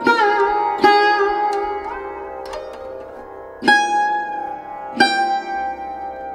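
Background music: a plucked string instrument playing slow single notes, a few of them sliding in pitch, over a steady drone.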